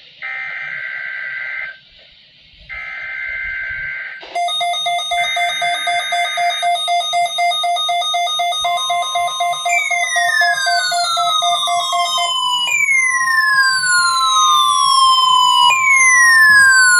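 NOAA Weather Radio required weekly test signal: three short screeching SAME data bursts, then the steady 1050 Hz warning alarm tone from about nine seconds in. Layered over them are electronic alarm sounds: a fast-pulsing buzzy tone from about four seconds in, and falling whistle sweeps repeating about every three seconds in the second half.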